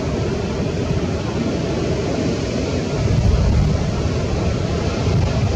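Steady rumbling roar of ocean surf breaking on a reef, a little louder about three seconds in.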